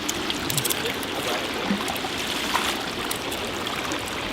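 Steady rush of running flood water, with small scattered clicks and splashes.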